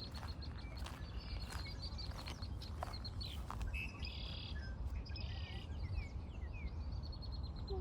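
Small songbirds singing and calling: a rapid high trill of repeated notes, then short buzzy phrases and quick falling chirps, over a steady low rumble.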